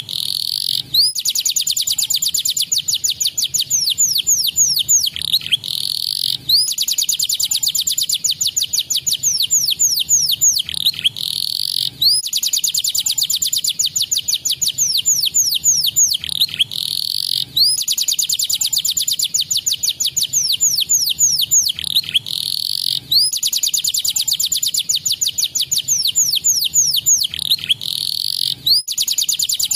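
Domestic canary singing fast, rolling trills of rapid high notes broken by quick downward-sweeping notes. The same song sequence comes round again about every five to six seconds.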